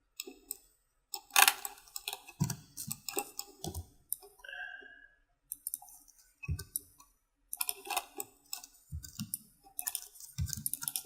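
Irregular clicks and a few low knocks, the sound of a computer mouse and keyboard being worked during mesh editing.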